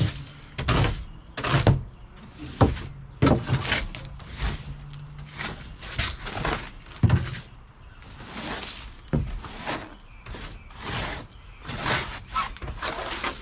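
Stiff-bristled broom head scraping across a fiberglass boat deck in short, irregular strokes, about one or two a second, sweeping off loose leaves and pine needles.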